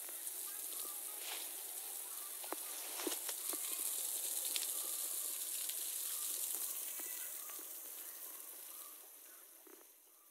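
Water spray hissing steadily as it showers down onto an elephant's back and head, with scattered drips and light splashes. The hiss fades away near the end.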